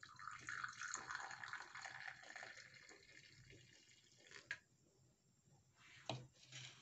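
Hot milky tea poured into a ceramic cup, a faint splashing trickle that tails off after about three seconds, followed by a few faint knocks.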